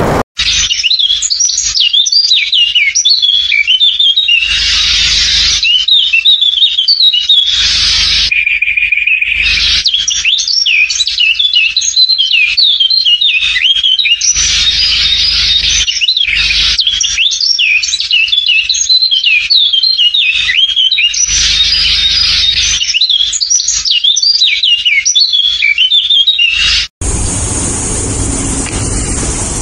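A dense chorus of many birds chirping, with quick high chirps overlapping continuously. About 27 seconds in, the chirping cuts off suddenly and a steady hiss takes over.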